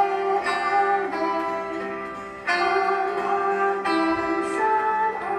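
Instrumental accompaniment track for the children's song, with plucked-string-like notes over a steady low tone during the sung section.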